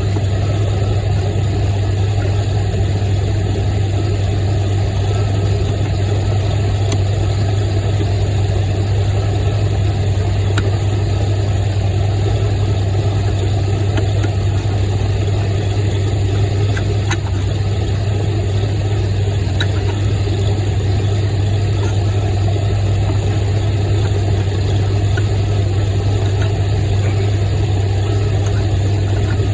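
An engine idling steadily with a constant low hum, and a few faint small metallic ticks scattered through it.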